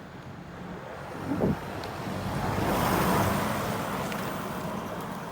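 A motor vehicle passing on the road, its engine and tyre noise growing louder to a peak about three seconds in and then fading.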